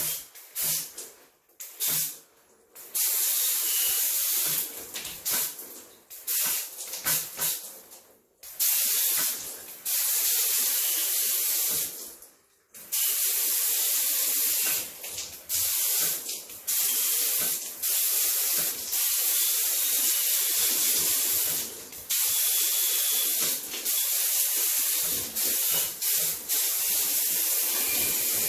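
Water spraying with a hiss from a hand-held nozzle: short separate spurts over the first several seconds, then long steady sprays lasting several seconds each, broken by brief pauses.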